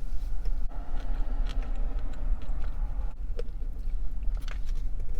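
Steady low rumble of a car idling, heard from inside the cabin, with a few faint clicks scattered through it.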